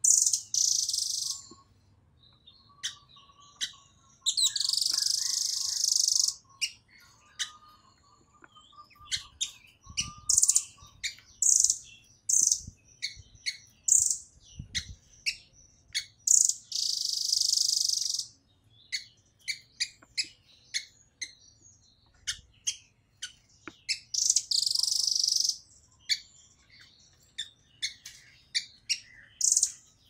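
Blue nuthatch (rambatan doraemon) calling in a dense, rapid series of sharp, high chips. Every several seconds a harsh, hissing rasp lasts one to two seconds.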